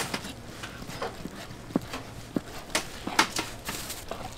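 Irregular clicks and knocks of cooking utensils clattering at a street food stall, with a low steady hum underneath.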